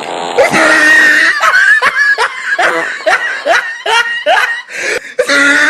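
Laughter: after a held vocal sound at the start, a run of short, rising bursts of laughing, about three a second.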